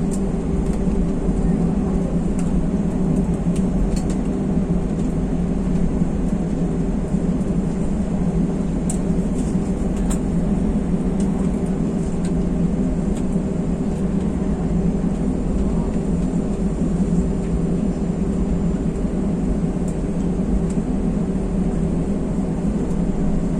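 Airliner engines running, heard from inside the passenger cabin as a steady drone with a constant hum and a few faint ticks.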